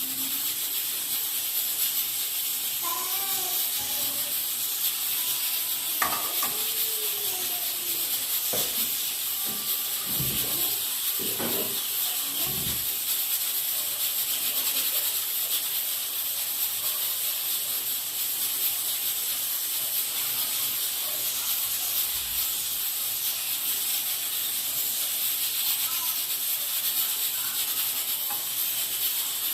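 Food sizzling in a frying pan on the stove: a steady hiss throughout.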